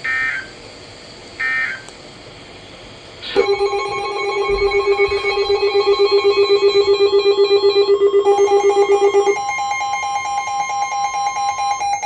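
Emergency Alert System audio: the last two short digital data bursts of an end-of-message code, then an electronic alert tone for about nine seconds. The tone is a rapidly pulsing low note under steady higher notes; its pattern changes partway through, and the low note drops out before the end.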